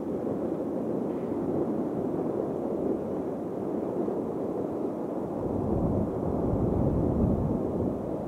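Jet airliner engines producing a steady, deep rumble that swells about six seconds in.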